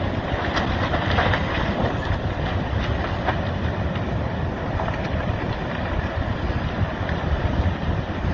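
Wind buffeting the microphone over a steady low rushing noise, with a few faint cracks in the first few seconds.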